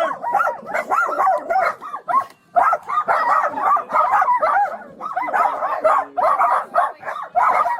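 A large pack of dogs barking and yipping all at once, a dense overlapping chorus of short high calls, with a brief lull about two seconds in.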